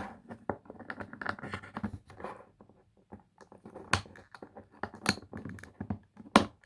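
Plastic toy packaging being handled and worked open: irregular crinkling and scratching, with a few sharper clicks in the second half.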